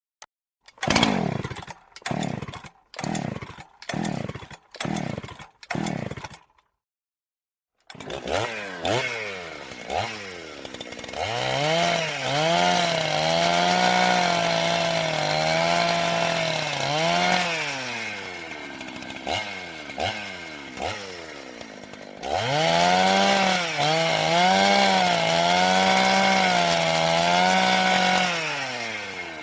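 Petrol chainsaw: six short engine bursts about a second apart, a brief pause, then it starts and idles. It is run up to high revs twice for several seconds each, the pitch wobbling as under cutting load, and drops back to idle between the two runs and near the end.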